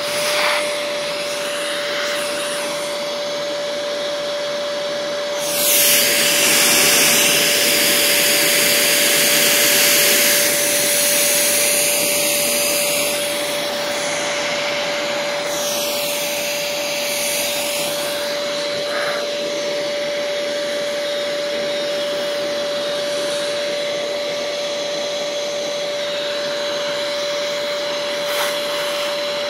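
Shop vacuum running steadily with a constant motor whine, sucking sand from a storage box. Its rushing hiss grows much louder and brighter twice, from about six to thirteen seconds in and again from about sixteen to eighteen seconds.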